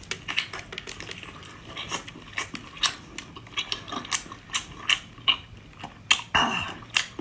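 Eating utensils clicking and tapping against a dish in a quick, uneven string of sharp clicks as food is rolled up and eaten, with a short mouth sound about six seconds in.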